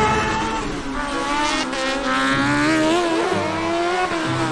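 Race car engine running, its pitch wavering and gliding up and down near the middle.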